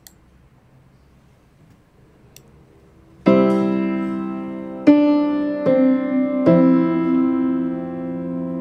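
Background piano music: after about three seconds of quiet, slow chords are struck every second or so and left to ring and fade.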